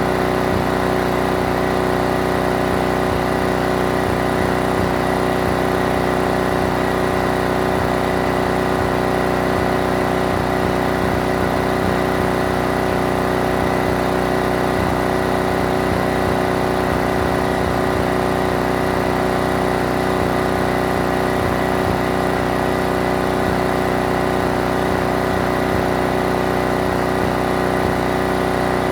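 Pressure washer running steadily at a constant pitch, with the hiss of the water spray.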